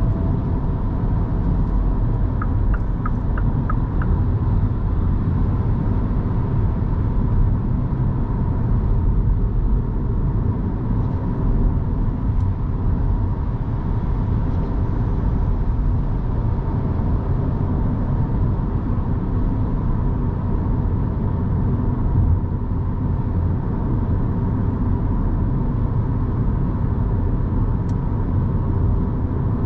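Battery-electric Mini Cooper SE on the move: a steady low rumble of tyres and road, with no engine note, and a faint constant tone above it. A quick run of short ticks comes two to four seconds in.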